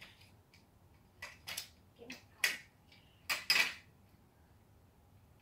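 Garden chairs being handled, with about half a dozen short clacks and knocks between about one and four seconds in.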